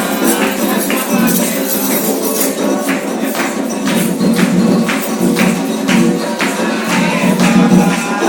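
Live Afro-Brazilian ritual percussion for Xangô, with drums and jingling percussion keeping a steady beat of about two strikes a second. Voices sing over it.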